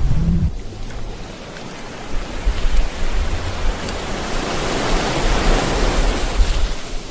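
Surf-like rushing wash of waves with a low rumble underneath, swelling to its loudest past the middle and easing off near the end.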